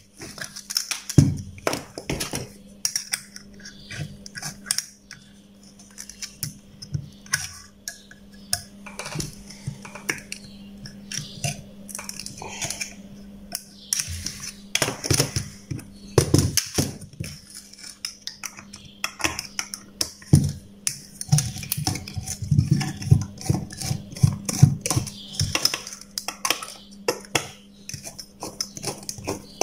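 Small screwdrivers turning screws out of a power supply's aluminium heatsink: irregular metal clicks, scrapes and clinks as the screws turn and the heatsink and circuit board are handled, with a faint steady hum underneath.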